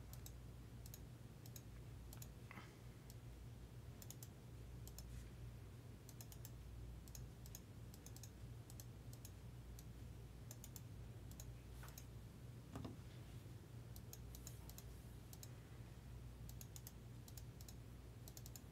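Faint computer mouse clicks and keyboard typing, coming in quick clusters, over a low steady hum.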